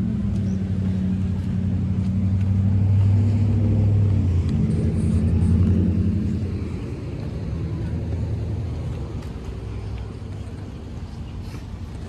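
A motor vehicle's engine running close by, a steady low drone that shifts pitch about halfway through, then fades as the vehicle moves away.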